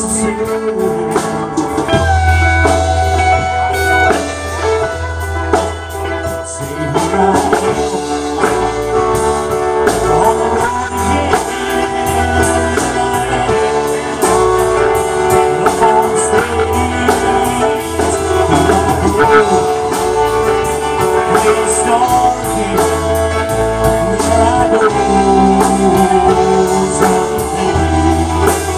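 Live blues band playing: electric guitar and drum kit with cymbals, a bass line coming in about two seconds in, and a harmonica played cupped against a hand-held microphone, its held notes bending.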